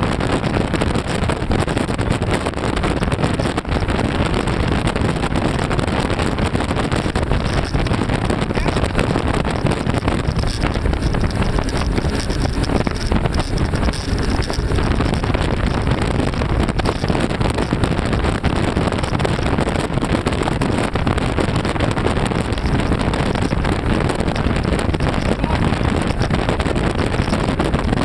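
Three outboard motors running steadily at high speed, mixed with heavy wind buffeting the microphone and rushing water from the wake. The noise is loud and even throughout, with no separate events.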